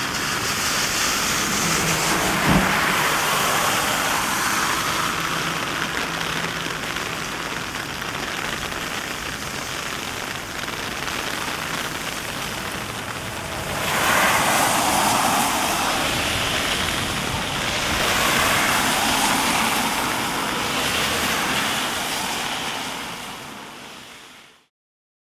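Heavy rain falling steadily, with a single knock about two and a half seconds in and two louder swells of hiss later on, before the sound fades out near the end.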